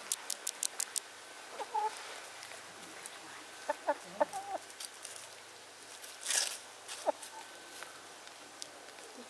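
Chickens clucking in short, scattered calls, with a quick run of sharp ticks in the first second and a brief rustling burst about two-thirds of the way through.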